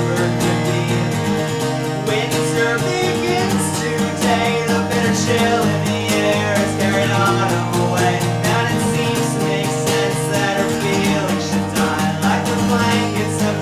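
A recorded song: full-band music with guitar over a steady, busy beat.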